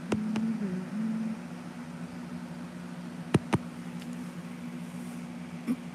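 A steady low machine hum, with a short wavering tone in the first second and four sharp clicks: two near the start and two about three and a half seconds in.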